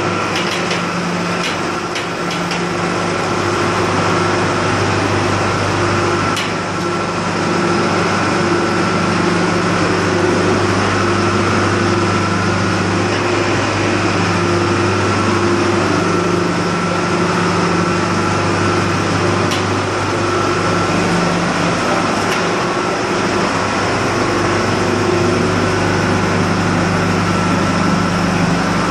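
Bell backhoe loader's diesel engine running steadily, with a few light knocks in the first couple of seconds.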